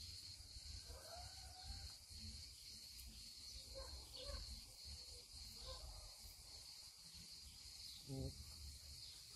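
Faint outdoor ambience: a steady high insect buzz with scattered faint chirps, and one brief pitched sound about eight seconds in.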